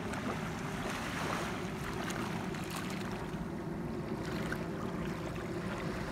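Gentle waves lapping at a sandy shoreline: a steady wash of shallow water over a low rumble, swelling softly now and then.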